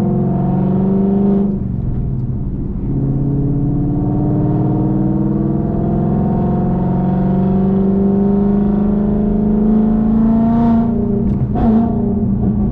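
2019 Ford Mustang GT's 5.0-litre V8 through Kooks headers and a Borla ATAK cat-back exhaust, pulling under acceleration. The engine pitch climbs for about a second and a half, dips briefly, then climbs slowly and steadily for about eight seconds, wavering near the end.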